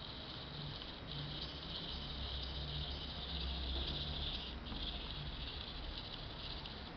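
Tiny geared drive motor of a Hexbug robot toy whirring with a steady high-pitched buzz as the bug walks and turns on a desk under radio control.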